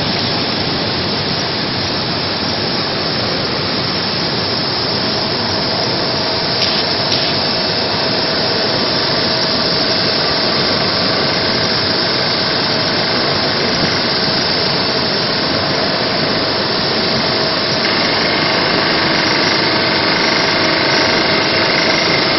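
Vegetable washing machine running: a loud, steady, unbroken rushing noise of motor and churning, with a faint steady hum joining it about five seconds in.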